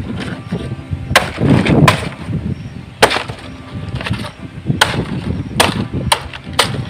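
Sickle blade chopping into the stiff base of palmyra palm fronds: about seven sharp chops at uneven intervals, with the rustle of the tough leaves between strokes.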